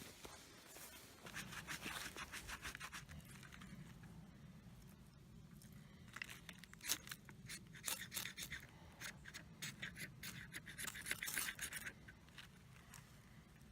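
Quick, rough scraping strokes in three bursts, several strokes a second.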